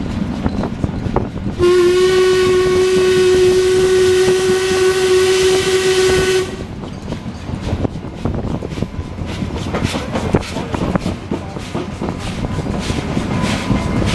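Whistle of the B1A steam locomotive blown in one long blast of about five seconds at a steady pitch, with a hiss of steam, starting about two seconds in. After it the train runs on with rattle and clatter over the rails.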